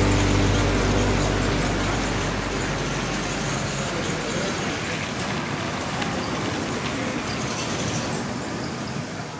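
A steady, even rushing background noise that slowly fades out, with the last notes of music dying away in the first second.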